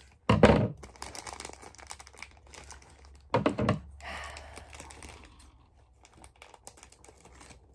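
Plastic packaging rustling and crinkling while a small figure part is worked free by hand, with two loud knocks of handling, one about half a second in and one about three and a half seconds in.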